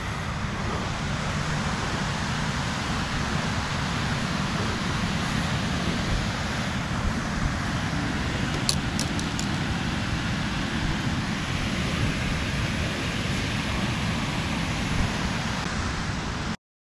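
Steady rushing of water pouring through a dam spillway, with a heavy low rumble. A few faint clicks come about halfway through, and the sound cuts off abruptly just before the end.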